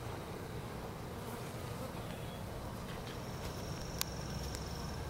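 Honey bees from a freshly installed package buzzing steadily around the hive. A thin high tone runs for about a second and a half from three seconds in, and a single sharp click comes about four seconds in.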